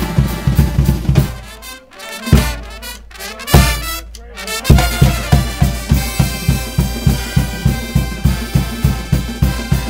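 Marching-style pep band playing: trumpets, trombones and a sousaphone over snare and bass drums keeping a steady beat. Near the start the drum beat drops out for a few seconds, with a couple of single hits, then comes back in.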